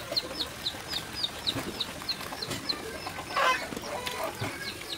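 Chickens in the yard: a steady run of short, high peeps about three a second, with one louder clucking call about three and a half seconds in.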